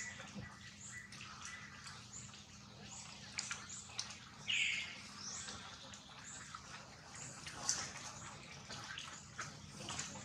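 Short high-pitched animal chirps and squeaks with scattered sharp clicks, over a faint steady low hum. The loudest chirp comes about four and a half seconds in.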